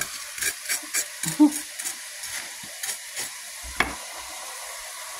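Food sizzling steadily in a frying pan, with a metal spatula clicking and scraping against the pan in a quick irregular run over the first three seconds, then one sharper knock a little before four seconds.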